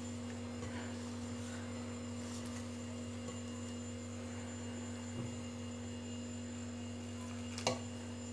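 Steady electrical hum made of several fixed tones, with a faint tap near the end.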